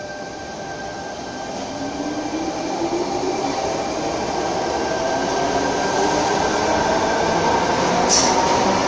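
Sydney Trains Tangara double-deck electric train departing a platform, its traction motor whine rising in pitch as it accelerates and its running noise growing steadily louder, with a sharp click near the end.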